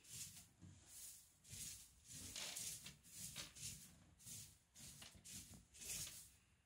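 Faint, soft rustling and scratching, a few short rustles a second, close to near silence.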